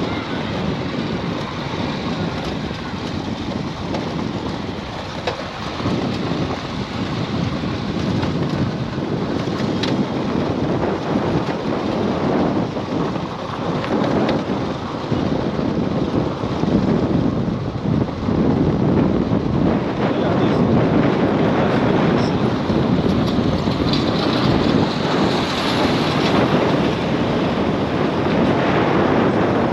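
Wind buffeting the microphone: a rumbling, gusting rush that gets louder about halfway through.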